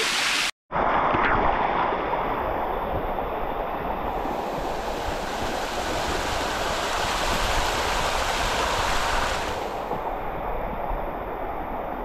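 Steady rushing of water cascading down a waterfall's rock face, heard close up. The rush grows brighter and hissier for several seconds in the middle. The sound cuts out briefly about half a second in.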